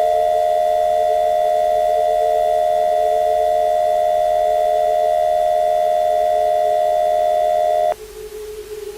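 Emergency Alert System attention signal: a loud, steady two-tone chord held for about eight seconds, cutting off abruptly. A fainter steady low hum runs underneath and carries on after it.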